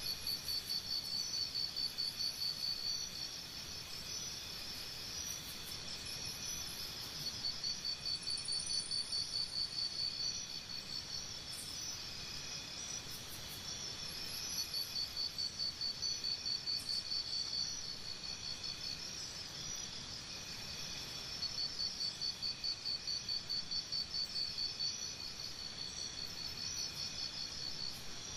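Tropical forest insects calling: a steady high-pitched chorus with one insect's rapid pulsing chirp trains that come in bouts of about three seconds, roughly every seven seconds.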